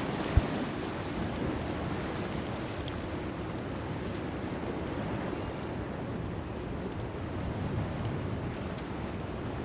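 Surf washing over the rocks at the foot of a concrete jetty, a steady rushing wash with wind buffeting the microphone. A single short low thump about half a second in.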